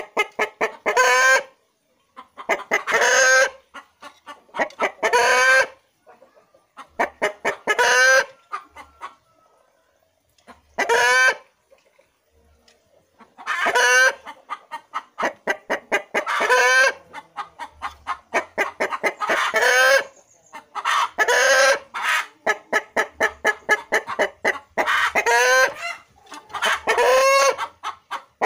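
Bangkok gamecock calling over and over: about a dozen short, loud calls every two or three seconds, each led by a quick run of clucks.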